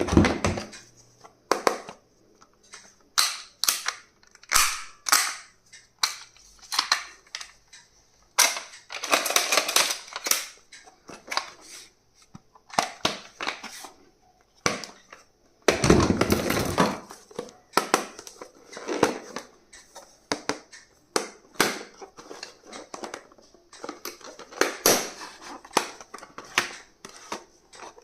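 Hands unboxing and handling stationery: an irregular run of sharp plastic clicks and snaps, with two longer crinkling rustles of packaging.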